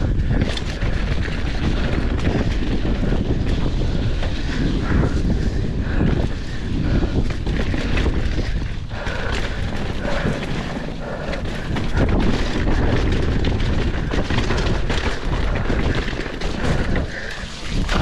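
Wind rushing over the microphone while a mountain bike rides down a dirt trail at speed, with the bike rattling and knocking over bumps.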